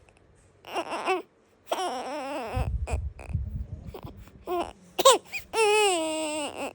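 Newborn baby crying in short, wavering bursts, then a longer cry near the end that falls in pitch: hungry fussing.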